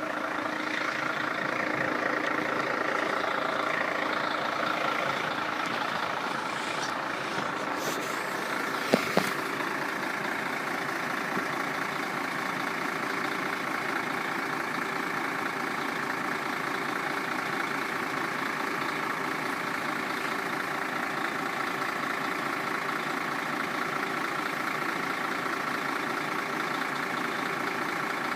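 A road vehicle's engine idling steadily, with a short knock about nine seconds in.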